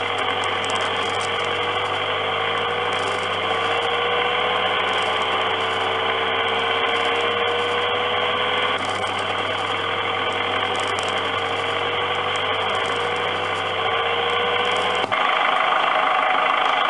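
R G Mitchell Animal Rescue ambulance kiddie ride running: a steady low motor hum with a slowly rising tone that repeats every few seconds, under a dense engine-like running noise. The low hum stops about 15 seconds in.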